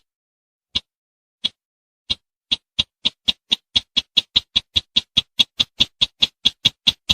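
Recorded call of the sintar semak, a small bush rail, played as a hunting lure: short sharp notes, a few spaced well apart at first, then coming faster and settling into a steady run of about four a second.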